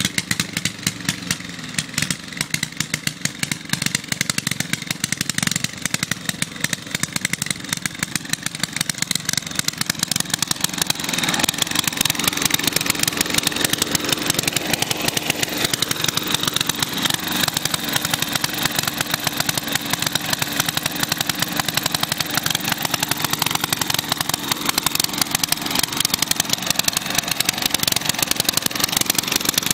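1963 Genoa lawn mower's small engine running with a rapid, even firing beat, getting louder about ten seconds in and then holding steady.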